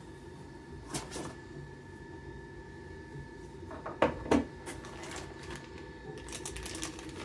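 Accessories being lifted out of a foam packing insert: scattered rubs and light clicks, two sharp knocks about four seconds in, then the crinkle of a plastic accessory bag near the end.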